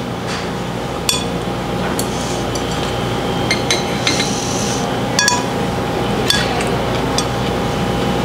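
A spoon clinking and scraping against a bowl as leftover noodles are stirred and scooped, in light, irregular clinks over a steady background hum.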